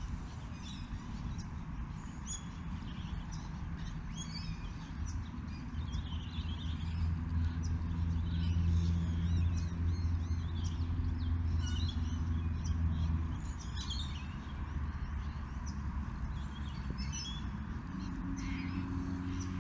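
Many small birds chirping, over a low engine hum that grows louder in the middle and then fades.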